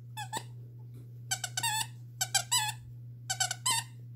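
Squeaker inside a Kong Cozie moose plush toy squeaking as a poodle puppy chomps on it. The squeaks come in short clusters about once a second.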